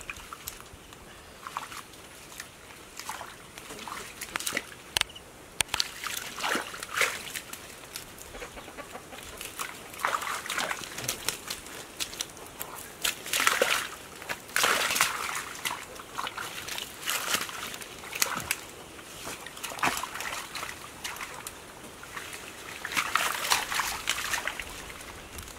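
Shallow muddy water and wet mud sloshing and squelching in irregular splashes as hands grope through it and bare feet step in it, louder in a few stretches around the middle and near the end.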